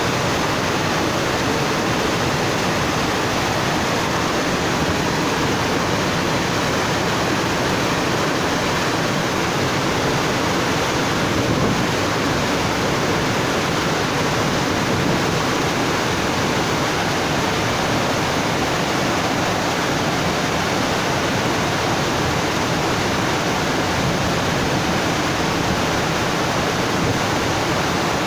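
Steady rush of running water, even and unbroken.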